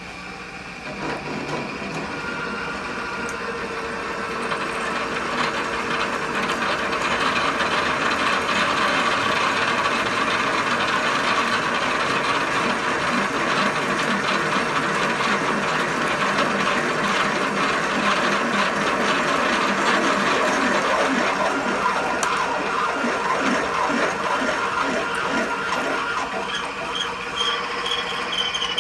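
Wilton gearhead drill press running at a slow 85 RPM, its gear train whirring steadily while the bit cuts a hole, the cutting noise building over the first several seconds and then holding.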